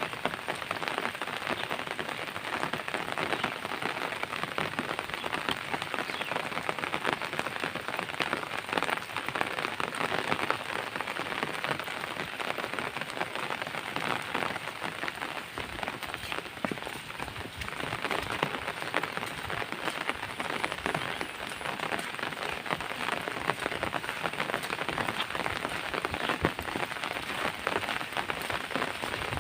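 Steady soft rain falling on surfaces: an even hiss made of many small drop ticks.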